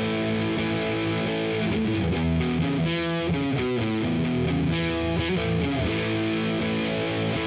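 Intro music led by a distorted electric guitar with sustained chords.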